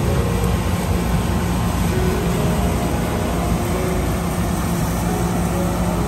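New Holland combine harvester running steadily while cutting and threshing spring beans: a dense, constant machine noise with a low engine hum.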